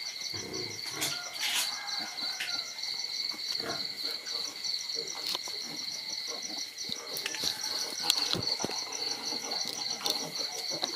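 Crickets chirping in a steady high trill that pulses about five times a second, with scattered scuffs and knocks over it, the sharpest about eight seconds in.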